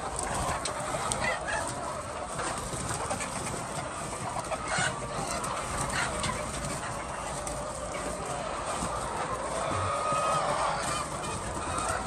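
A large flock of white laying hens clucking and calling all at once in a continuous, dense din.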